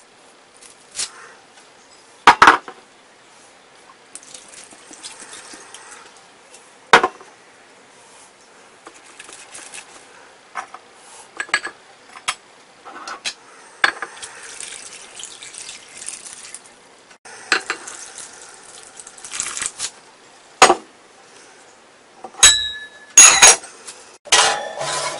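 Liquids poured from bottles into a clay pot, with sharp clinks of glass and ceramic scattered through. Near the end come several loud metallic clanks with a ringing note as the lidded clay pot is set onto the oven's wire rack.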